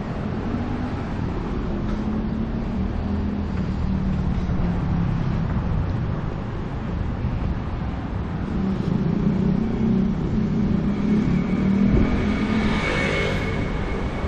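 Road traffic: vehicle engines running and passing. Near the end one passes close, louder, with a thin high steady tone.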